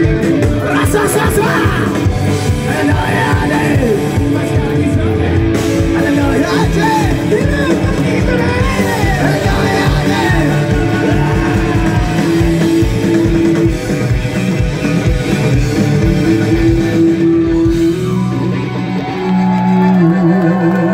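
Live punk rock band playing loud: a driving drum beat under electric guitars and bass, with voices singing along. About 18 seconds in, the drums drop out and held notes carry a slower melody.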